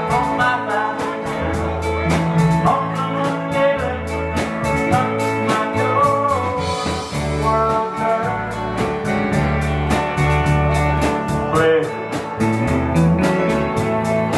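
Live country band playing a tune with guitar and a steady beat.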